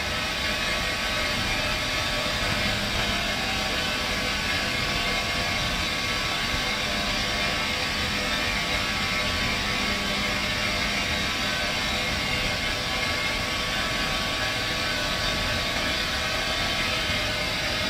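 Steady drone of paper recycling plant machinery: an even rushing noise with faint, steady hums in it, unchanged throughout.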